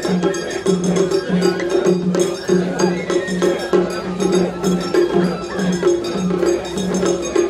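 Crowd of mikoshi bearers chanting in a steady two-beat rhythm, about two chants a second, with metal clinking and jingling over it.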